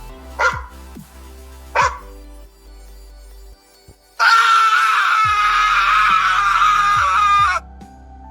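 A dog barking twice in the first two seconds over background music. After that, a loud, harsh sustained sound with a wavering pitch lasts about three and a half seconds and cuts off suddenly, leaving the music.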